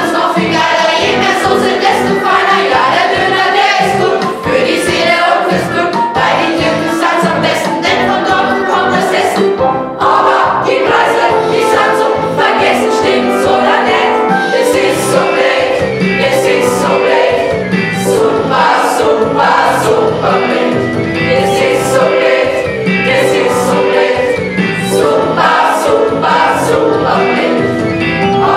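A school class singing an Austropop song together over a band backing with a steady drum beat; the music drops out for a moment about ten seconds in, then carries on.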